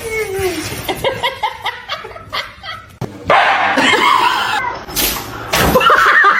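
A pet animal making short vocal sounds, with a cut to another clip about halfway through.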